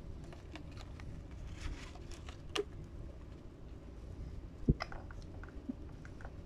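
Scattered light clicks and taps of an African grey parrot's beak working at a plastic water bottle and an aerosol can, with one sharp knock a little past halfway.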